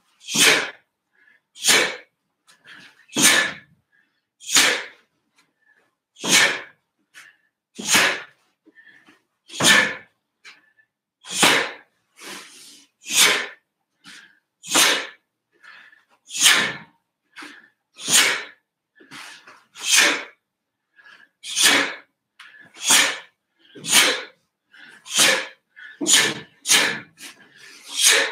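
A taekwon-do practitioner's sharp, forceful breaths out, one with each technique of a pattern. About twenty come in a steady rhythm roughly every second and a half, closer together near the end.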